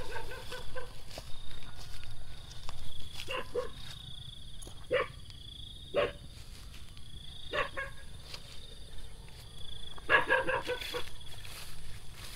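Short animal calls repeated every so often, each brief, with several close together about ten seconds in.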